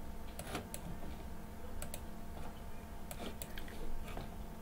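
Computer keyboard keystrokes and mouse clicks: scattered sharp clicks in small clusters of two or three, as keyboard shortcuts are used in a design program.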